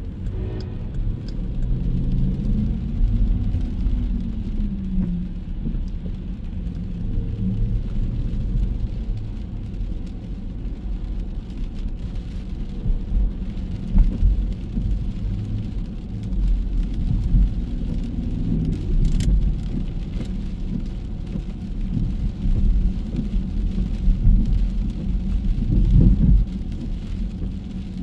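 Road traffic on wet streets: car engines running and passing over a heavy low rumble, with a faint hiss of rain.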